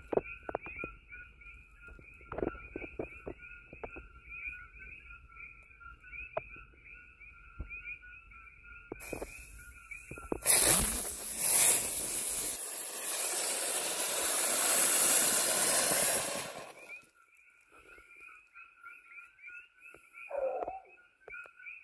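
A rod held against a cinder block flares with brilliant white light and smoke, making a loud, steady crackling hiss for about six seconds from about ten seconds in, after scattered clicks. Night insects chirp steadily underneath in a pulsing two-note trill.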